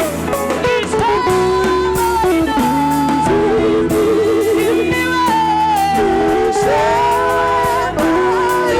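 Church worship music: a voice singing long, wavering notes over guitar and a steady bass.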